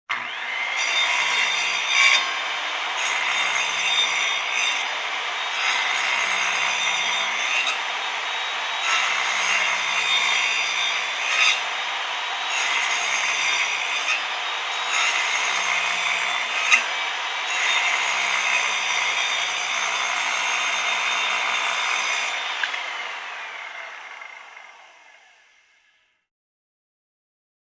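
Electric saw running and cutting, a steady high motor whine under a rasping cutting noise that changes every second or two. Near the end the saw is switched off and its motor winds down, fading out.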